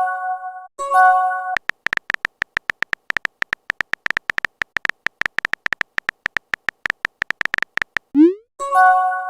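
Phone texting sound effects: a short multi-note chat message tone sounds twice, then about six seconds of fast keyboard tapping clicks. A quick rising swoop near the end is followed by the message tone again.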